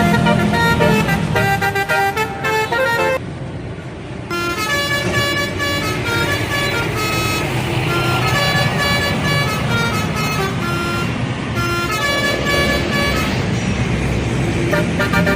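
Indonesian bus telolet horns playing quick multi-note melodies over engine and road noise. The horn tune breaks off for about a second around three seconds in, then starts again.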